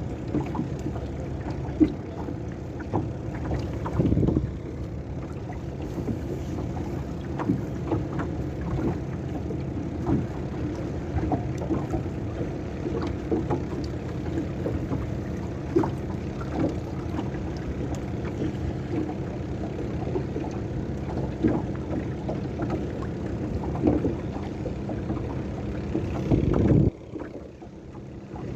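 Steady low rumble of a small fishing boat at sea, with scattered small knocks against the hull. The sound drops off suddenly near the end.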